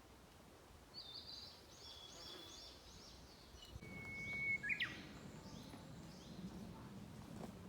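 Wild birds calling: a quick run of short, high, falling notes about a second in, then a held whistled note that ends in a sharp upward sweep near the middle, the loudest call. Fainter high notes follow.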